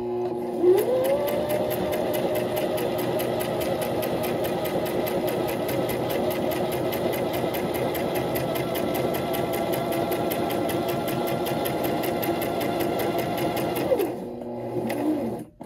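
Brother electric sewing machine sewing a straight edge stitch through fabric: the motor whine rises as it gets up to speed in the first second, runs at a steady pace with a rapid, even needle clatter, then slows and stops about fourteen seconds in.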